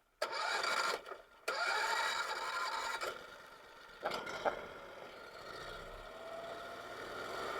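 A small boat motor starting and then running, with a brief drop-out about a second in before it runs on steadily.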